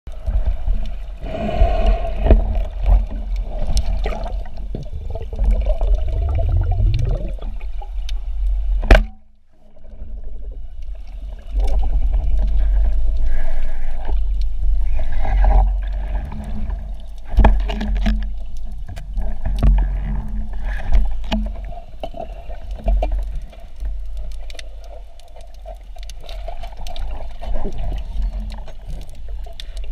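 Underwater sound picked up by a camera in its housing: a continuous low rumble of moving water with scattered sharp clicks and knocks, and one hard crack about nine seconds in, followed by a brief drop in level.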